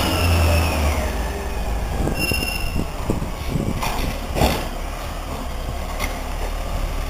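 Peterbilt Wayne Curbtender garbage truck's diesel engine running as the truck pulls ahead, with a whine that fades away about a second in. A brief high squeal comes about two seconds in. Several knocks and clanks follow as the automated side arm grabs and tips a cart.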